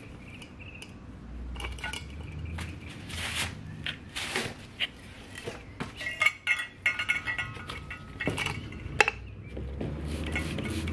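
Metal clinking and knocking as the dirt-bike silencer's perforated steel core and end cap are handled and set down on a concrete floor, with a cluster of ringing clinks about six seconds in and one sharp click near the end.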